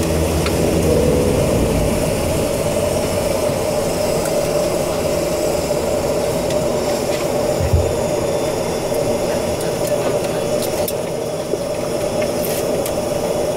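Flight-deck noise of a BAe ATP turboprop airliner: a steady hiss and hum from its Pratt & Whitney PW126 turboprops, with a held mid-pitched tone. A deep propeller drone drops away at the start. A single low thump comes about eight seconds in.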